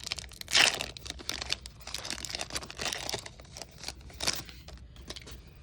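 Foil booster pack being torn open and crinkled by hand, a dense run of irregular crackles with a louder rip a little after half a second in and another around four seconds in, then cards sliding out.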